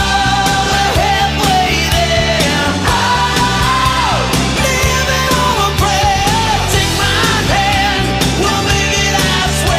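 Background music: a song with a sung vocal line over a steady beat.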